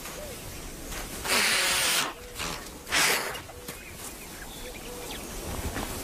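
An ostrich hissing harshly twice, a long hiss about a second in and a shorter one about three seconds in: a threat from a dominant female driving a rival female away from her nest.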